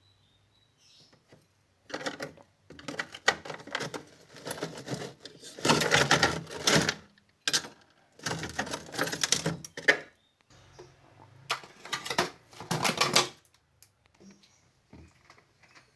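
Frost ice built up in a refrigerator's freezer being chipped and scraped off in several bursts of rapid tapping and scraping, each about a second long.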